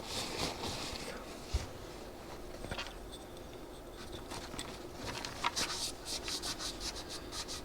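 Faint scratching and rubbing strokes at a small go-kart carburetor being cleaned, coming in a quick run of strokes near the end.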